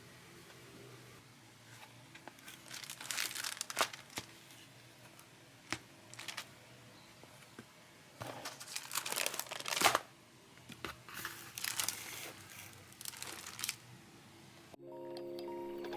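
Packaging being torn open and crumpled by hand, in several rustling, crinkling bursts. Music starts abruptly near the end.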